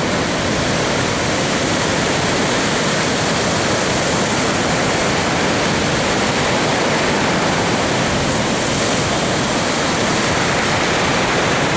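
Heavy ocean surf from a hurricane swell: a loud, steady rush of breaking waves and whitewater.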